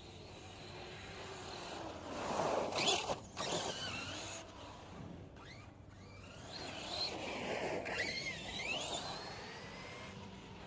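Electric motor of an RC truggy, a 2000kv brushless motor on a 6S LiPo, whining up and down in pitch as it accelerates and slows, over a rushing noise. It swells loudest twice, about two seconds in and again around seven to nine seconds in.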